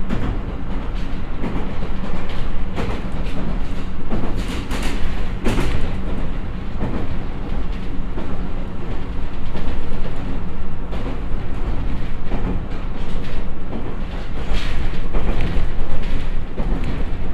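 JR East E127 series 0 electric train running at about 60 km/h, heard from inside the passenger cabin: steady wheel and track rumble with a low hum, and a few sharper clacks about five seconds in and again near the end.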